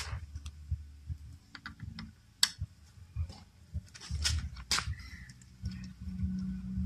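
Scattered clicks and light knocks as fingers handle the open PC power supply's metal case, parts and cables, the sharpest about two and a half seconds in. A steady low hum comes in near the end.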